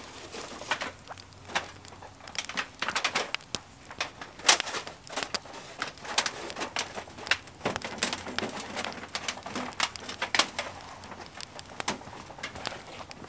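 Wood campfire crackling with irregular sharp pops, mixed with rustling and light knocks as a titanium tent stove and its chimney pipe are handled and fitted into the canvas tent.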